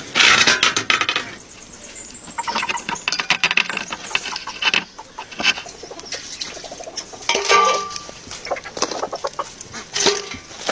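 Dense clicks, knocks and rustles from hands working a metal skewer rod through a raw whole chicken and from rods poking at burning wood. A short pitched animal call comes about seven and a half seconds in.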